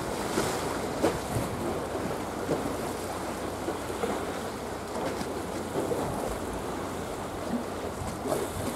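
Small sea waves splashing and lapping in a steady wash, with scattered little splashes. Wind blows on the microphone, adding a low rumble.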